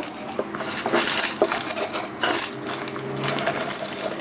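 Dry, papery onion skins crinkling and rustling as they are crumpled by hand and pushed into a glass jar, with a few sharp clicks of the skins and fingers against the glass.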